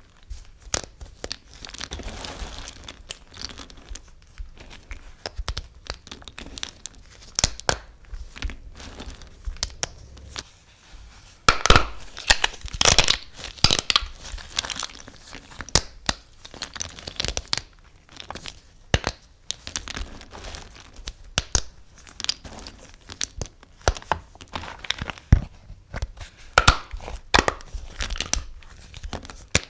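Knife cutting through dry bar soap: an irregular run of crisp crunching and crackling strokes, loudest in a cluster about twelve seconds in.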